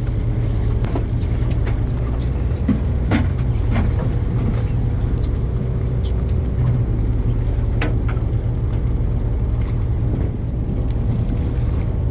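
Steady low drone of a fishing boat's engine running, with wash of the sea and wind underneath and a few faint short high chirps.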